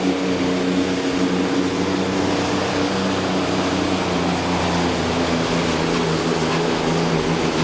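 Kenworth super semi's four-turbo diesel engine running flat out under full load while pulling the sled. It holds a steady, heavy drone with a thick rush of noise over it.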